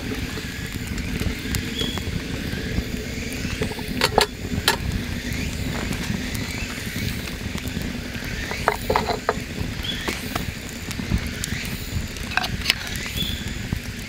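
Tableware being handled at a laid-out meal: scattered light clicks and knocks, with a small cluster about nine seconds in, over a steady low outdoor rumble. A few short high chirps are heard now and then.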